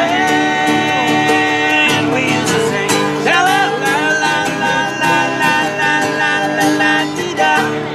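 Acoustic guitars strummed in a country-folk style while a man and a woman sing a held, sliding melody together.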